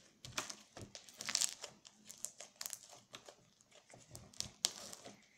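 Glossy, stretchy slime being pulled off a table and squished in the hands, giving a dense run of irregular crackling clicks and pops.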